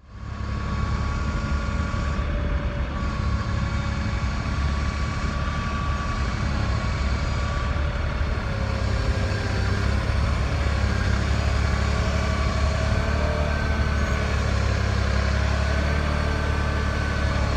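Kioti compact tractor's diesel engine running steadily, a strong low hum with wavering higher tones over it.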